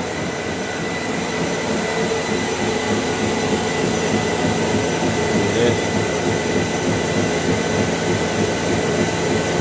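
Bowflex BXT-216 treadmill running at high speed: its 4-horsepower drive motor gives a steady whine over the rumble of the belt and deck, while the incline is being lowered.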